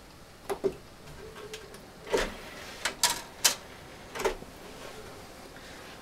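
A string of short clicks and knocks, about seven, spread over several seconds as a desktop PC is plugged in and switched on and a disc is loaded into its CD-ROM drive tray.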